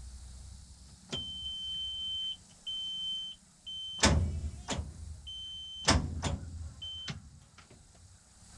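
The R72's starter solenoid clicking five times without the engine turning over, mixed with stretches of a steady high-pitched beep. Despite a fully charged battery, the fault is taken to be the solenoid or the starter.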